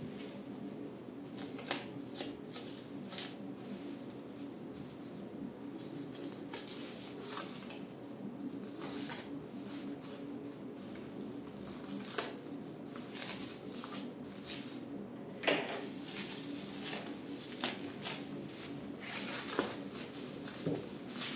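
Scattered clicks, taps and light rustles of hands handling something close to the microphone, over a steady low hum.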